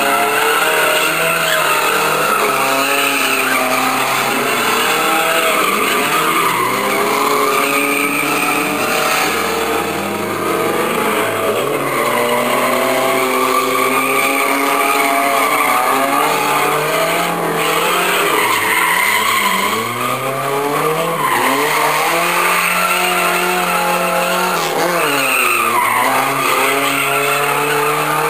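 Fiat 125 with a 2.0-litre DOHC eight-valve engine drifting: the engine revs rise and fall again and again over the continuous squeal of sliding tyres.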